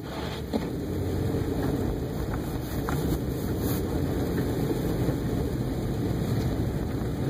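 A car driving along on snowy roads: a steady low rumble of engine, tyres and wind.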